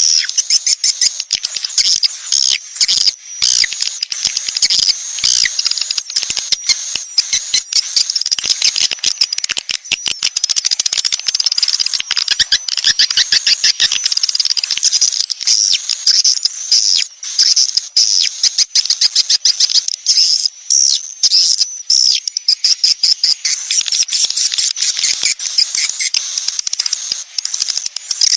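Recorded swiftlets twittering: a dense, unbroken mass of rapid high chirps, trills and clicks. This is a swiftlet-house lure call of the 'sedot anakan' kind, meant to draw young swiftlets in.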